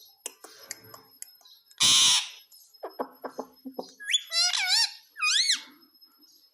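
Pet parrot calling: one loud harsh squawk about two seconds in, a few short clicks, then two wavering whistled calls near the end.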